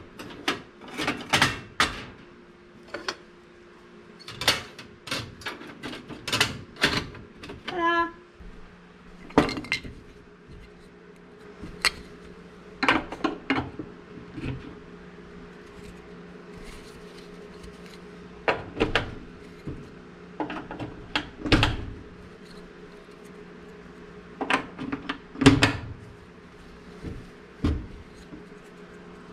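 Clicks, knocks and metallic clatter from reassembling a Frigidaire electric coil range: coil burner elements pushed into their plug-in sockets and settled into their drip pans, then the plastic control knobs pushed back onto their stems. A faint steady hum comes in about eight seconds in.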